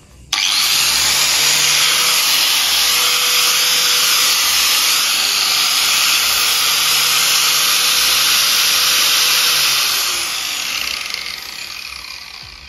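Makita 9553B angle grinder switched on: its motor starts abruptly and runs steadily at full speed, then is switched off about 10 seconds in and winds down over the last couple of seconds. This is a test run of the repaired grinder, which had been dead before.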